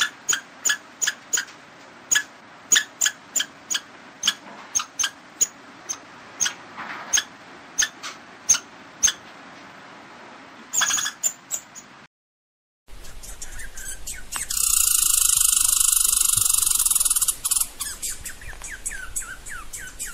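Striped palm squirrel chirping: sharp, high chirps repeated about twice a second. After a brief break, a loud steady hissing buzz lasts a few seconds among further chirps.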